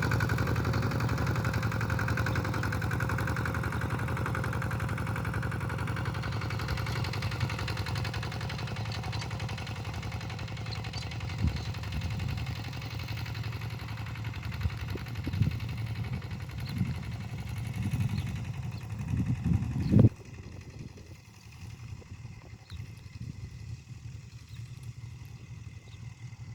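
Kubota tractor's diesel engine running steadily under ploughing, slowly growing fainter. In the second half there are scattered knocks and clatter, ending in one sharp loud knock, after which the engine sound drops suddenly much quieter.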